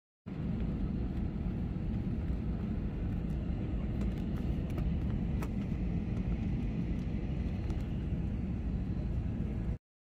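Steady low rumble of a jet airliner's engines and airflow heard inside the passenger cabin, with a few faint clicks. It cuts off suddenly near the end.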